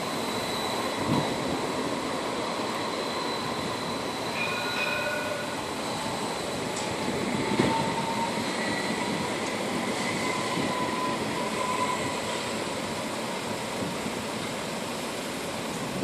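Edinburgh Trams CAF Urbos 3 tram running past on street track: a steady rolling noise with a few brief, thin, high squeals in the middle of the pass.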